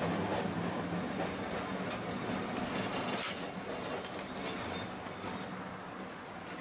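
Tosa Den streetcar running along street track, heard from inside the driver's cab: a steady low motor hum and wheel rumble with a couple of clicks, and a short high squeal a little past the middle. It grows gradually quieter toward the end.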